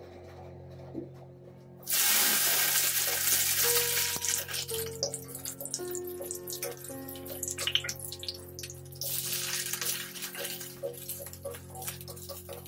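Soya chunks hitting hot oil in a stainless steel kadai: a loud, sudden sizzle starts about two seconds in and slowly dies down, with the spatula clicking and scraping against the pan as they are stirred. The sizzle flares up loudly again later on.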